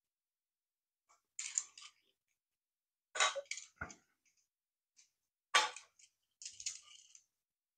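Small plastic model-kit parts clicking and rattling against each other as they are handled and fitted together by hand, in a few short bursts.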